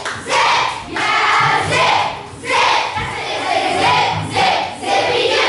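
A chorus of children singing together, loud, in short phrases.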